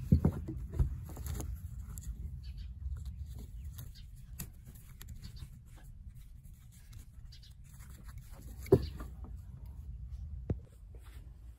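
Handling noise as an old leather sling is threaded and buckled onto a shotgun's barrel swivel: leather rubbing and sliding against the metal, with a few sharp clicks of the buckle and swivel, two just after the start, the loudest about 9 s in, and one more about 10.5 s in. A low, steady rumble of wind on the microphone runs underneath.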